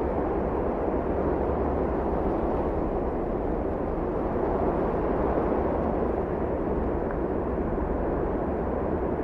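Steady road and engine noise of a car driving, heard from inside the cabin, holding an even level throughout.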